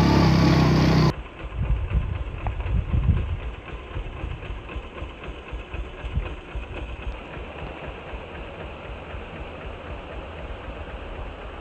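Motorcycle riding on a rough dirt track, cut off suddenly about a second in. Then a motorcycle engine idling, with a few uneven low rumbles before it settles into a steady, quieter run.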